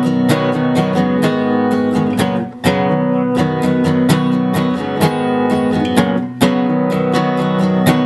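Home-built Martin dreadnought steel-string acoustic guitar, capoed, strummed in a quick steady rhythm, with a brief break in the strumming about two and a half seconds in. Heard through a DSLR camera's built-in microphone.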